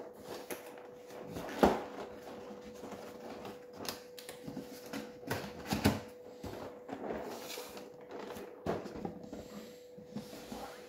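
Board-game box contents being handled: plastic trays and miniatures clicking and knocking against a cardboard box, with a few sharper knocks, about three, over a faint steady hum.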